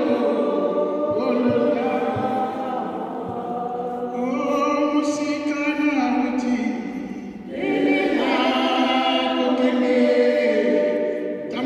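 A choir singing with long held notes, dipping briefly about seven and a half seconds in before the voices come back in full.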